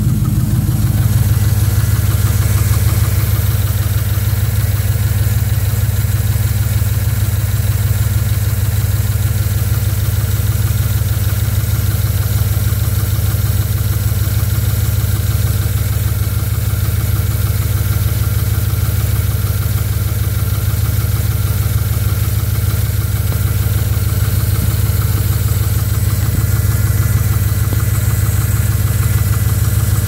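Truck engine idling steadily, heard close up at the open hood by the accessory belt and power steering pump.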